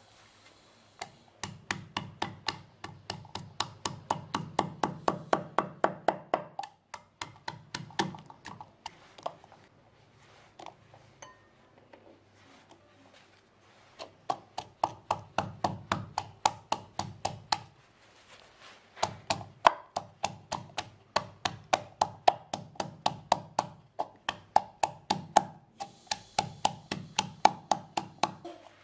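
Wooden pestle pounding lemongrass, garlic and shallots in a wooden mortar: quick knocks about four a second, in runs broken by short pauses, with a quieter stretch in the middle.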